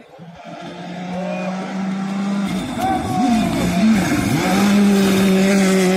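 Rally car approaching flat out on a gravel stage, growing louder: its engine revs rise and fall through gear changes about halfway in, then hold steady at full throttle over the hiss of tyres on gravel.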